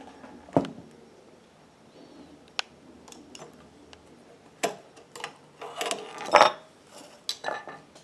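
Irregular metallic clicks, taps and knocks from a screwdriver and hands working at the needle plate of an industrial sewing machine. They are scattered and sharp, and the loudest ones cluster about three-quarters of the way through.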